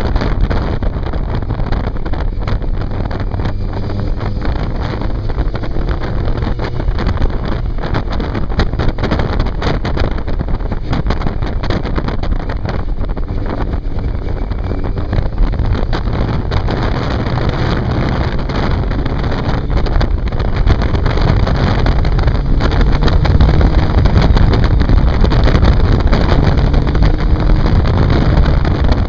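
Onboard sound of a 750 cc inline-four sport motorcycle under way, engine running steadily with wind rushing over the microphone. The engine gets louder near the end as it picks up speed.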